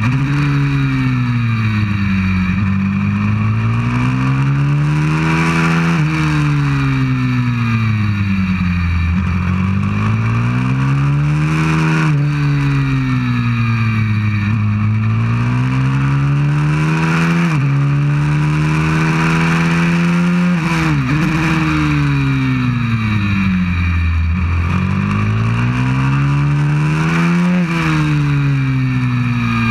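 190cc pit bike's single-cylinder four-stroke engine at racing pace, heard from the bike itself. The revs climb and fall in long sweeps through the lap, with a sharp drop in pitch about five times as the throttle is shut or a gear changes.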